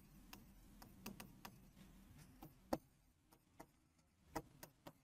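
Near silence with faint, scattered ticks from writing strokes on the board, the clearest a little under three seconds in.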